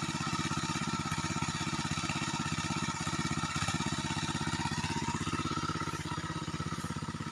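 Small engine of a motorised herbicide sprayer running steadily at a constant speed, with a rapid, even beat.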